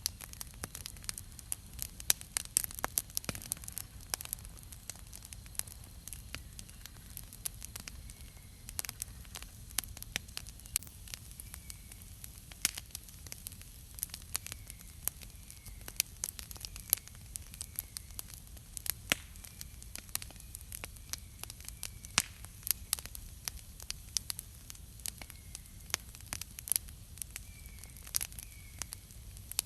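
Wood campfire crackling: a dense, irregular stream of sharp pops and snaps, several a second, over a faint steady hiss of burning.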